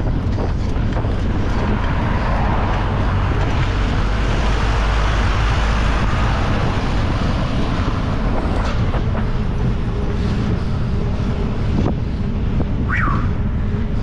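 Steady wind rush on a moving microphone mixed with road-traffic noise as vehicles go by on the road ahead, with a deep rumble underneath.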